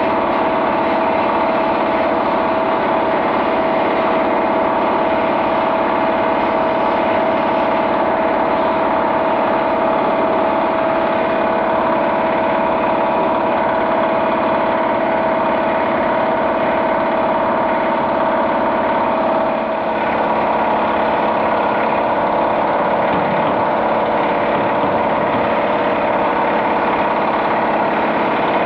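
A machine runs steadily with a constant whine. Its pitch shifts slightly about two-thirds of the way through.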